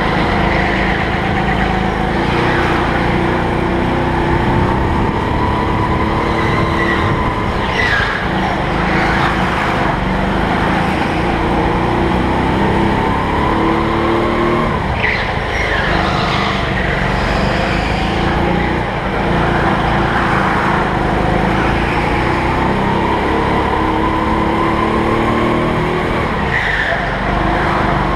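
Rental kart's engine heard from the seat, its pitch climbing on each straight and dropping back into the corners, with the tyres squealing briefly in several of the turns.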